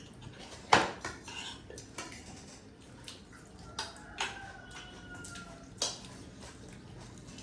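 Cutlery and dishes clinking during a meal: a few sharp clinks of utensils against plates, the loudest about a second in.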